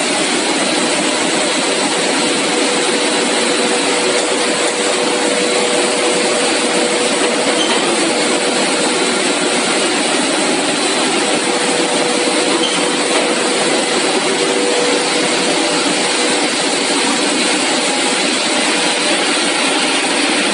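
Steady, loud machine noise from a running CPP cast film extrusion line, a constant hiss with a faint steady hum underneath.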